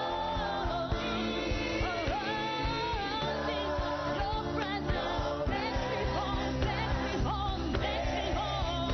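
Gospel worship song: singing over instrumental backing with a steady beat.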